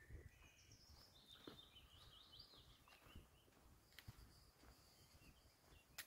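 Faint birdsong: small birds chirping and trilling in short high phrases, with a few soft low thumps.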